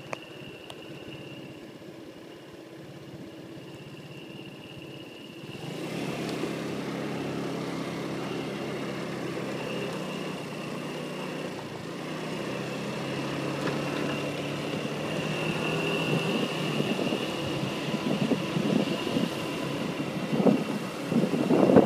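A motor vehicle's engine running steadily, growing gradually louder about five seconds in. Wind buffets the microphone near the end.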